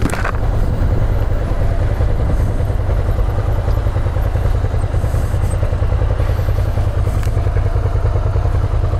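Motorcycle engine running at low speed in town traffic, a steady low rumble with road noise, heard from the bike itself.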